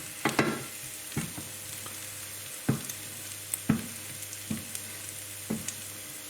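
Spiced paste sizzling in oil in a pan on high heat, with a steady hiss, while a spoon stirs it and knocks against the pan several times.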